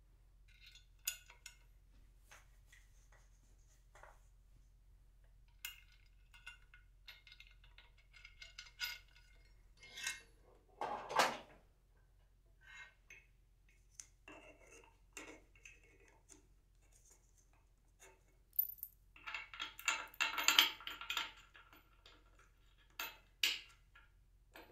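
Metal clinks and rattles of a cable pulley tower's steel pulleys and cable being handled: scattered short clinks, one louder clatter a little before the middle and a busy run of rattling later on.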